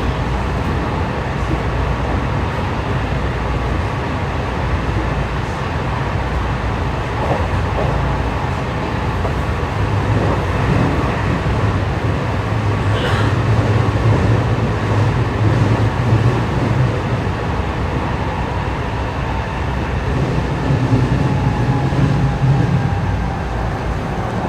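A 207 series electric train running, heard from inside the car: a steady rumble of wheels on rail with a faint whine, swelling in the low end twice.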